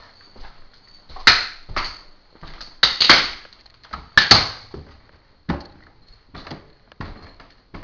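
Interior demolition: a string of loud, irregular bangs and cracks of wood being struck and broken, about seven blows, the hardest around one, three and four seconds in.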